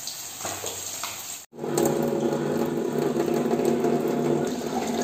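Fish frying in oil in a wok, a soft sizzle; after a sudden break about a second and a half in, a louder, steady rush of tap water running into a steel sink, with a steady hum through it.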